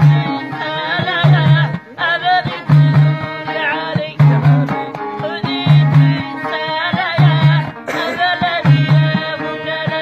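Amazigh folk music played live: round frame drums beat a steady deep stroke about every one and a half seconds, with lighter hits between, under a plucked long-necked lute and singing voices.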